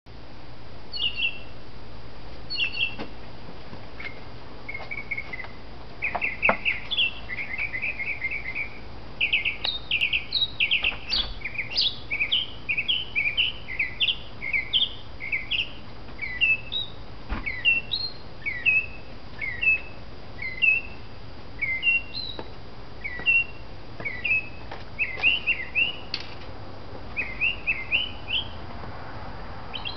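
A mockingbird singing quite loudly: a long, unbroken run of short, varied high phrases, each repeated a few times before it switches to the next.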